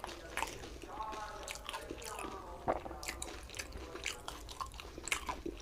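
Someone eating fuchka (panipuri) close to the microphone: crisp, hollow puri shells crunching as they are bitten, with wet chewing between the crunches.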